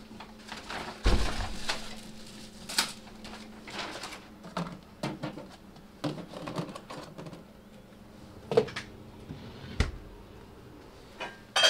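Takeout food being unpacked by hand: paper bags rustling and containers and objects knocked and set down, with a heavy thump about a second in and several sharper knocks later.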